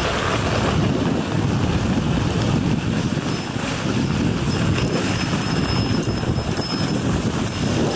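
Dog sled moving over snow behind a running husky team: a steady rushing noise of the runners gliding, with wind buffeting the microphone.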